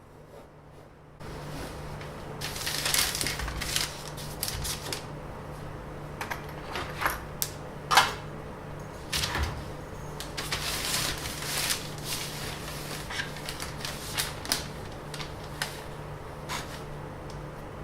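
Handling noise from shaping a flexible ruler: irregular rustling with many sharp clicks and taps, over a steady low hum that starts about a second in.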